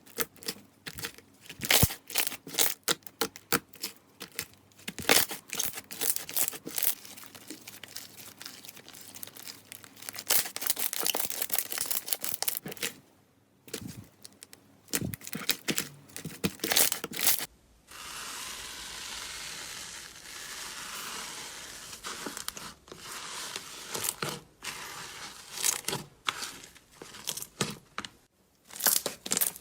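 Slime being squeezed, poked and stretched by hand, giving dense runs of crackling, popping clicks. For a few seconds past the middle it turns into a steadier hissing crackle.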